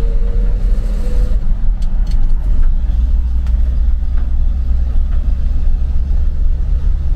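1958 Chevrolet Apache 3/4-ton pickup driving along, heard from inside the cab: a steady low engine and road drone that grows stronger about three seconds in, with a few light knocks.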